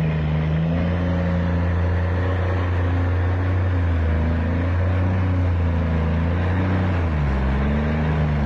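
Heavy logging truck's diesel engine running steadily under load, its low drone dipping briefly in pitch about seven seconds in.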